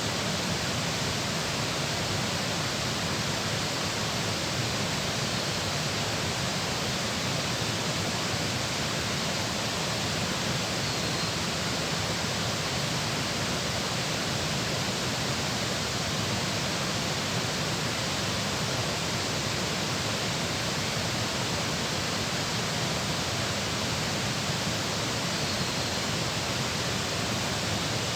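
Steady, unbroken rush of fast-flowing water, as at a dam's outflow.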